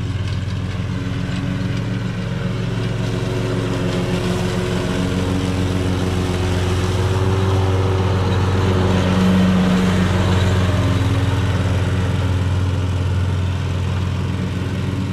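Gravely zero-turn riding mower running steadily while mowing wet grass, growing louder as it passes close by about nine seconds in, then fading as it drives away.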